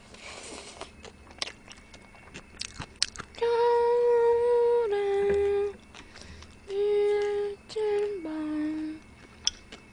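A woman eating noodles, with faint clicks and slurps for the first few seconds, then humming a slow tune in long held notes with short breaks between them, the last note dropping lower near the end.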